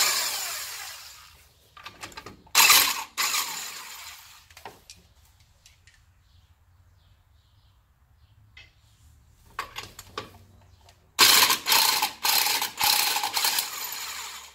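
Corded electric impact gun running in three bursts as it spins lug nuts off a car's wheel studs, the last and longest burst near the end; the first burst fades away as the motor winds down. A few small clicks come in the quiet stretch between.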